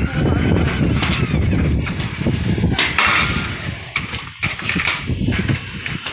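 Strong wind gusting across the microphone, a loud uneven low rumble that swells and drops, with sharper noisy gusts about three seconds in and near the end.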